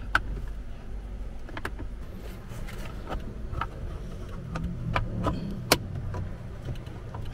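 Scattered sharp clicks and taps of a Honda City GM6's plastic dashboard trim being pried at with a plastic trim removal tool, the panel held by clips that are hard to free, over a low steady hum.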